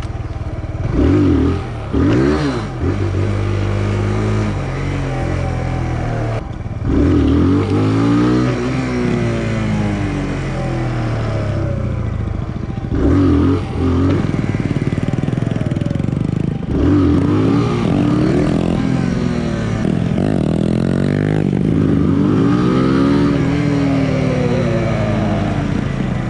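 Small 125 cc single-cylinder motorcycle ridden off road, its engine revving up and easing off again and again as the rider works the throttle and shifts gears over rough ground, with some rattling from the bike.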